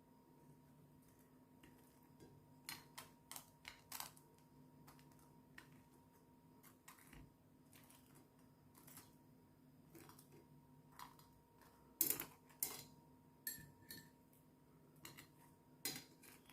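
Faint scattered light clicks and taps of crumbed baked bread pieces being arranged on a plate, in small clusters a few seconds apart, the sharpest about twelve seconds in, over a faint steady hum.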